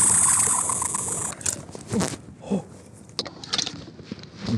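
Small plastic Barbie toy fishing reel whirring with a rapid clicking for about the first second and a half, as line runs on a hooked fish. After that come scattered knocks and handling sounds of the rod against the kayak.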